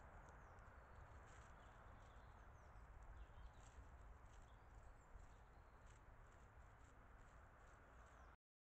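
Near silence: the steady hiss of a trail camera's recording, with faint scattered high ticks. The sound cuts off shortly before the end.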